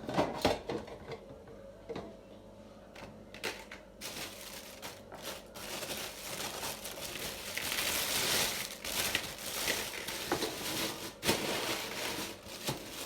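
Packaging being handled: a few knocks at first, then about four seconds in a long stretch of crinkling and rustling that keeps going, loudest around the middle.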